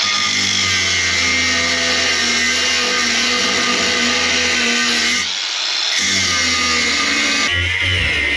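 Angle grinder with a cutting disc running at full speed, a steady high whine over a hiss, as it cuts through a black-painted steel bar held in a vice. The sound briefly dips about five seconds in and then picks up again.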